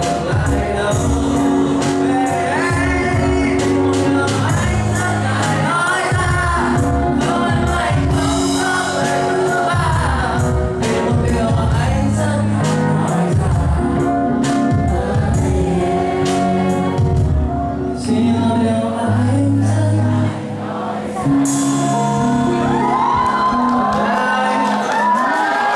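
Live pop song played by a band, with a voice singing a melody over a steady drum beat and bass.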